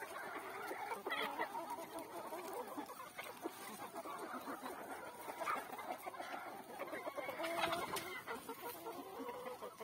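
A flock of Kadaknath chickens clucking, many birds calling over one another without a break.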